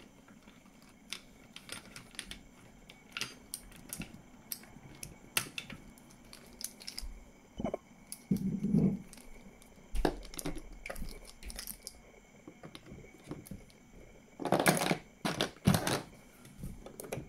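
Plastic toy keys on a wire ring clicking and rattling as they are handled and tried at the doors of a toy garage: scattered light clicks, with a louder clatter about three-quarters of the way through.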